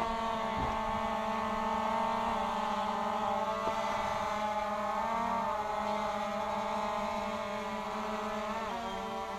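DJI Phantom 2 Vision Plus quadcopter's motors and propellers whining steadily in flight, several steady tones that shift slightly in pitch about five seconds in and again near the end.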